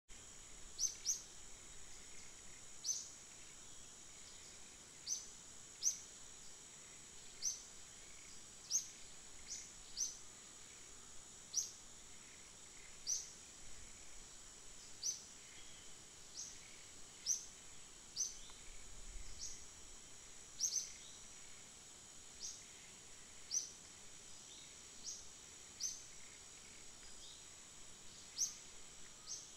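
Outdoor ambience: a steady, high-pitched insect drone, with a bird giving short, high, falling chirps about once a second at uneven intervals, sometimes two close together.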